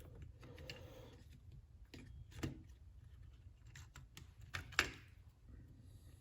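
Scattered light clicks and taps of plastic and metal parts from a disassembled cordless impact driver being handled and set down, the loudest a sharp tap just under five seconds in.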